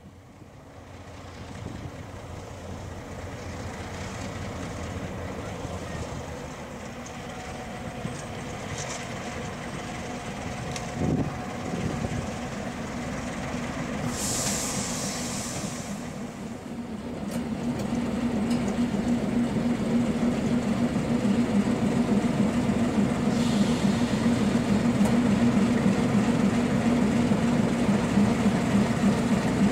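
MaK 450 C diesel shunting locomotive approaching with its train, its engine running with a steady drone that grows louder as it draws near. A brief hiss comes about halfway through.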